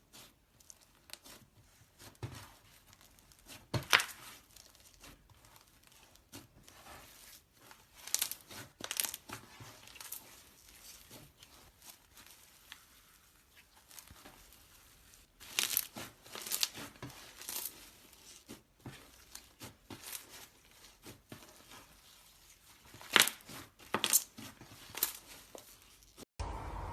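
Slime being handled by hand, giving off irregular sticky pops and crackles, with louder bunches of clicks now and then.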